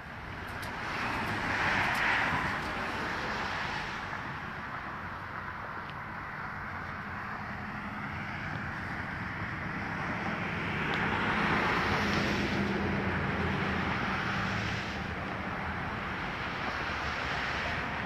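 Outdoor vehicle noise: a steady rumble with a faint low engine hum, swelling louder about two seconds in and again around the middle before easing off.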